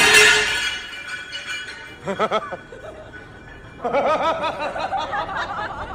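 The tail of a crash as a free-standing punching bag goes over, dying away in the first second. Then, from about four seconds in, a person laughs.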